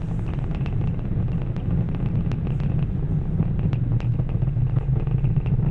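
Falcon Heavy rocket engines heard during ascent: a steady deep rumble with frequent sharp crackles.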